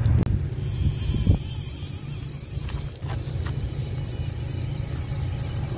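Wind buffeting the microphone: a steady low rumble with hiss.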